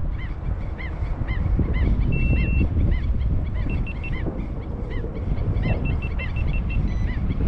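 A head-mounted action camera gives a longer beep, then runs of short, flat electronic beeps as its battery dies. Under this, a bird repeats short rising-and-falling calls about three times a second, over wind noise on the microphone.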